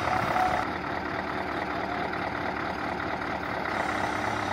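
Scania 143 V8 diesel engine running steadily, driving the hook-lift hydraulics as a heavy container is pulled aboard.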